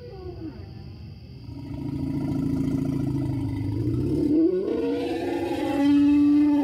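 Monster roar built from animal recordings: an orca call, then, from about four seconds in, an elephant call pitched down. It grows louder into a low growl and ends on a strong, steady held tone.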